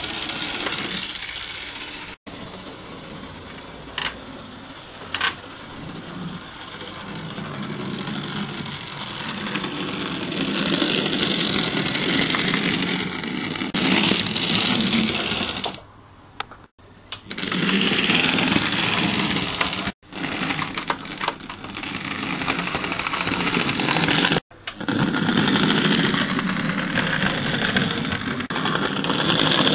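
Model J50 tank engine's small electric motor and wheels running on the track, a steady mechanical whirr and rattle that swells and fades. The sound cuts out abruptly several times.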